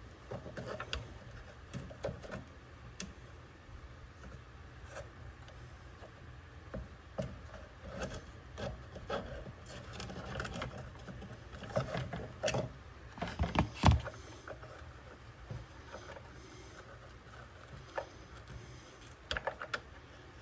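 Scattered clicks, taps and rubbing of hands handling and working on a model airplane and its parts, with a burst of louder knocks a little past the middle.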